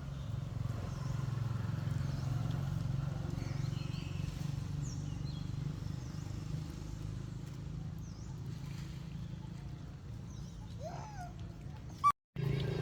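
Outdoor ambience: a steady low hum with faint, short high chirps scattered through it. Near the end comes a short rising animal squeal, followed by a sharp click and a brief dropout in the sound.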